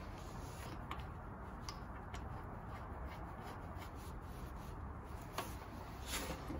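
Small metal clicks and scraping of hand tools on a bicycle crankset as a Park Tool crank puller is threaded into the crank arm, with a few sharp ticks, the loudest about five and a half seconds in.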